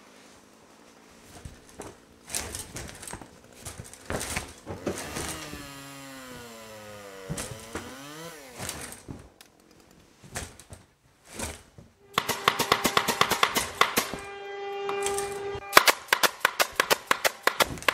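Pneumatic brad nailer firing a fast run of shots into a hardwood frame joint, several a second over a steady tone, through the last six seconds. Before that come scattered knocks of wooden pieces being fitted together and a sound that glides down and back up in pitch.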